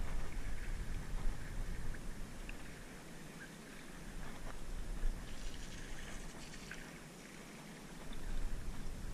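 Low rumble on the microphone that swells and fades, over a faint hiss, with a few light clicks and rustles as a centerpin rod and reel are handled.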